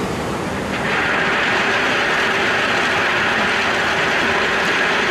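Diesel tipper truck raising its dump bed and tipping a load of crushed stone: the engine runs steadily under the hydraulic lift, and the rushing rattle thickens about a second in as the load starts to shift and slide out of the back.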